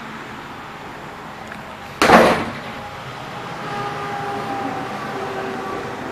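A single sudden bang about two seconds in, dying away within half a second, over a steady background rumble.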